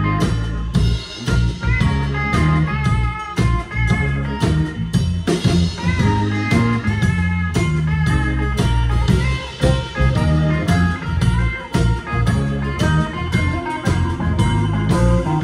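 Live blues band playing an instrumental stretch, with guitar lines over bass and a drum beat.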